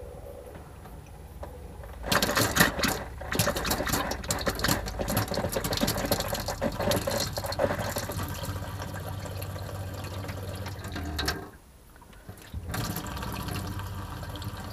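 Motorhome water pump running with a low hum, then tap water spluttering and splashing into a stainless steel sink as air in the pipe clears, settling into a steadier flow. Near the end the flow breaks off for about a second, then comes back.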